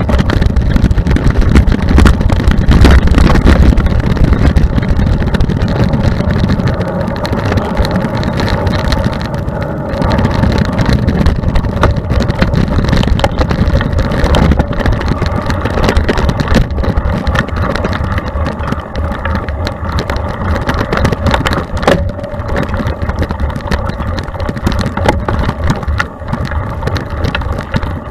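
Mountain bike riding fast down a dirt forest trail, heard from a camera mounted on the bike or rider: wind rumbling on the microphone, heaviest in the first few seconds, over a constant clatter of the bike's chain and frame rattling across roots and ruts.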